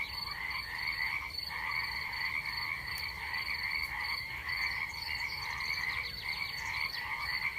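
Night chorus of frogs calling in continuous pulsing croaks, over a steady high-pitched cricket trill.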